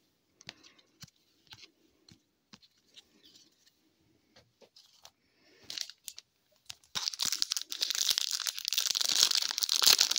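A foil hockey card pack being torn open and crinkled in the hands. It starts about seven seconds in, after a stretch of faint, scattered clicks of cards being handled.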